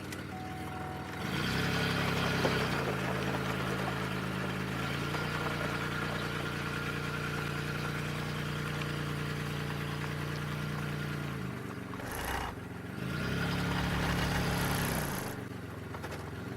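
2002 Chevy Malibu engine running at idle, raised in speed about a second in and again near the end, with steady idling in between.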